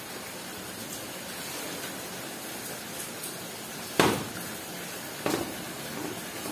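A steady hiss of background noise, broken by two sharp knocks, a loud one about four seconds in and a second a little over a second later.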